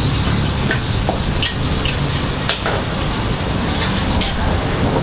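Street food stall ambience: a steady low rumble and hiss, with several short clinks of dishes and cutlery scattered through it.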